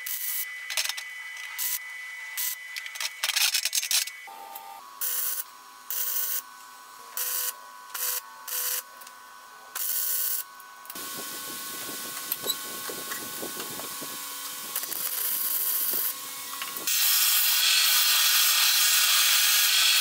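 Electric arc welding on steel: a series of short tack welds, each a crackling burst of about half a second to a second, then a longer continuous weld from about 11 s. Near the end, about three seconds before the close, a belt sander starts grinding a small steel part with a loud, even hiss.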